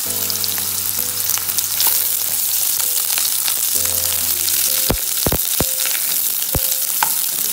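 Chopped red onions sizzling in hot oil in a nonstick frying pan. In the second half a wooden spatula stirs them, knocking against the pan several times.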